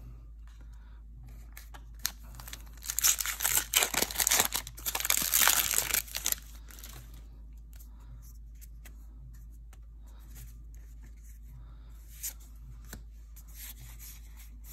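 Foil wrapper of a Magic: The Gathering booster pack being torn open and crinkled, a loud crackling for about four seconds starting two seconds in. Afterwards there are only faint ticks of cards being handled.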